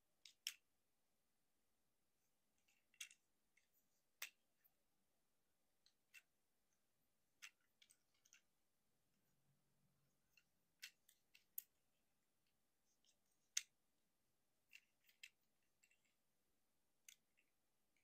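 Plastic parts and joints of a Transformers Voyager Class Motormaster action figure clicking and snapping as they are moved into place by hand. The clicks are short, sharp and scattered at irregular intervals, with near silence between them.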